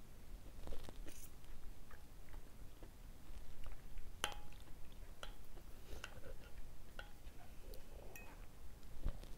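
A person chewing a mouthful of noodle soup close to the microphone, with a metal spoon and fork clinking against a ceramic plate several times about halfway through.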